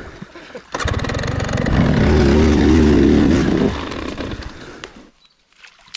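KTM dirt bike engine revving. It comes in suddenly about a second in, rises and wavers in pitch through the middle, then dies away and cuts out about five seconds in.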